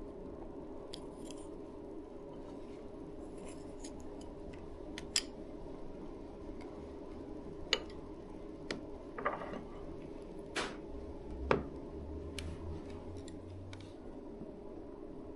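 Chopsticks and tableware clicking and tapping lightly against bowls and dishes during a meal: a scattering of small, sharp clicks over a steady low hum.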